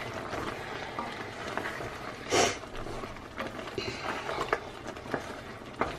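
Wooden spoon stirring a thick, chunky tomato sauce in an enamelled Dutch oven: soft scattered taps and squelches of the spoon through the sauce, with one louder scrape about two and a half seconds in.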